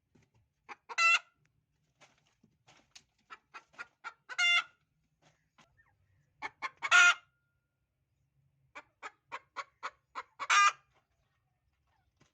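A hen's laying cackle, the call a hen makes around laying an egg. It comes in four rounds, each a run of quick short clucks ending in a long, loud squawk.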